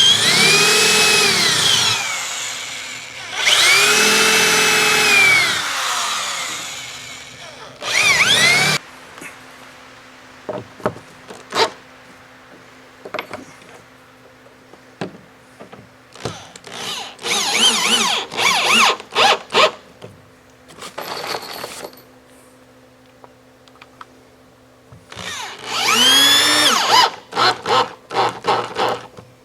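Power drill driving screws through the Z-brace into the tongue-and-groove door boards. The motor spins up, holds and winds down in several long runs in the first nine seconds. Shorter bursts and quick trigger blips follow, then another long run near the end.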